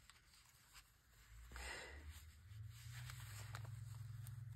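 Soft rustle of paper being handled, about a second and a half in, with a few faint ticks. A low steady hum comes in after that and holds.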